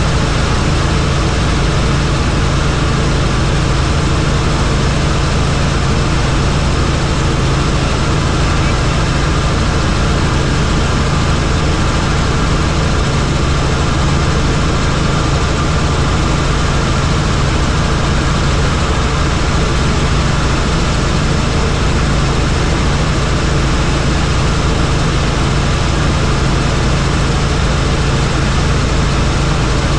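Helicopter in flight: steady, unbroken engine and rotor noise with a strong low hum.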